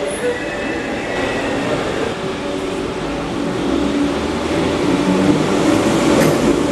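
Merseyrail Class 507 electric multiple unit running into an underground platform, its rumble growing louder about four seconds in as it draws near.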